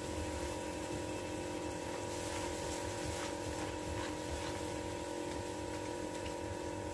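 A spatula stirring thick dal-and-jaggery puran filling in a non-stick pan, with a few faint scrapes, over a steady mechanical hum that holds several even tones.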